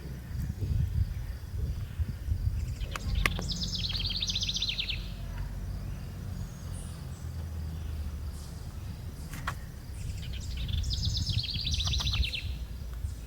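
A bird gives a rapid chattering trill twice, about four seconds in and again near the end, over a steady low rumble and a faint insect-like whine.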